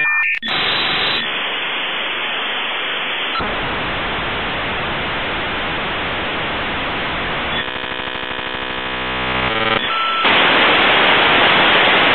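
Dial-up modem connecting over a phone line: a harsh hiss of static, with a stretch of rapidly pulsing buzzing tones about two-thirds of the way through and a louder hiss near the end.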